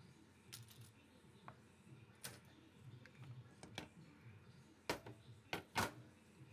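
Metal parts of a 4L60E transmission valve body clicking and knocking as they are handled and lifted off the case: scattered light clicks, then three louder knocks about five seconds in.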